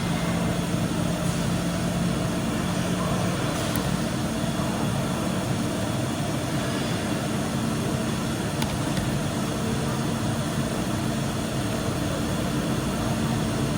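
A steady low mechanical hum with a faint even hiss, unchanged throughout, and a couple of faint clicks.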